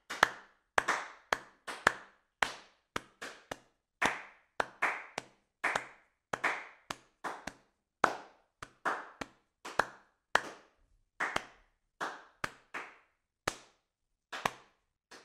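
A series of sharp hits, about two a second at an uneven pace and varying strength, each dying away quickly with a brief ringing tail.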